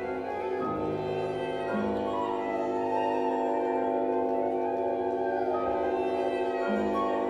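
Live contemporary classical chamber ensemble, bowed strings including violins and double bass, playing a dense chord of sustained, overlapping held notes that slowly grows louder, with a lower note entering about two seconds in and again near the end.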